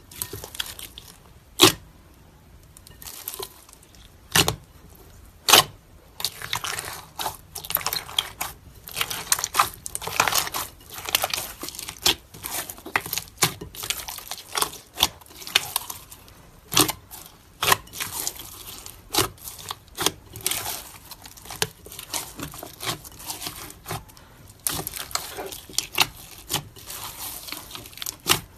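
Clear slime being kneaded and squeezed by hand with white granules worked into it: sticky crackling and tearing with frequent sharp pops, a few of them loud snaps in the first six seconds and again a little past the middle.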